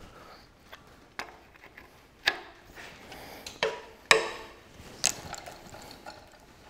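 Socket and long breaker bar clinking and clunking against the stud nuts of a cast-iron engine's water manifold as they are fitted and heaved on. There are about five sharp metal knocks, the loudest about four seconds in.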